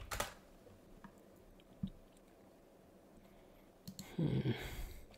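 A quick run of computer keyboard clicks that stops within the first moment, then a lone soft knock and a brief louder rustling noise near the end.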